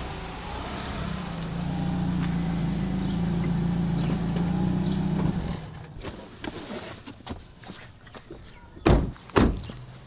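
A car engine running as the car pulls up, switched off about five and a half seconds in. Then a car door clicks open, and two heavy thunks near the end as the door is shut.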